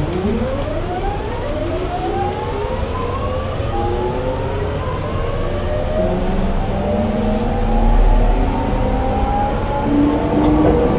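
Mitsubishi GTO-thyristor VVVF inverter of a JR 209 series 1000 motor car accelerating: a whine of several tones that rises from a low pitch just after the start and climbs, jumping to new pitches several times, over a steady low running rumble.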